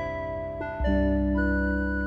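Background music: keyboard chords with a held bass note, the harmony changing and the bass growing stronger about a second in.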